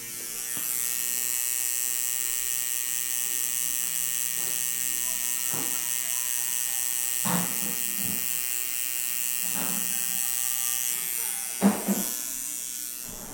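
Coil tattoo machine buzzing steadily as it works, with a few short sounds over it, the loudest near the end.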